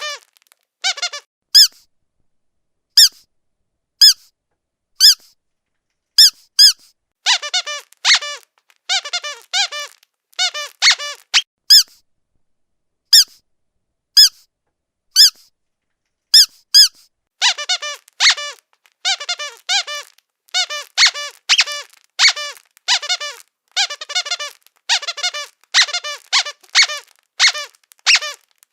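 Squeaky dog toy squeezed over and over, giving short high squeaks. At first they come singly about a second apart, then in quick runs, and from a little past halfway they come in a rapid, continuous string.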